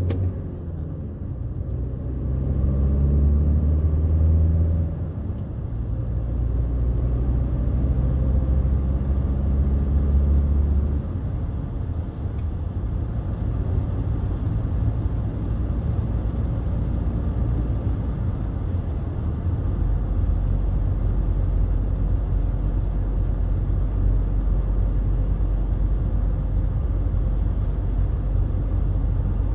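BMW 320d's 2.0-litre four-cylinder turbodiesel (M47D20) heard from inside the car while driving. The engine note climbs in the first few seconds and changes about 5 and 11 seconds in, then settles into a steady low drone over road noise.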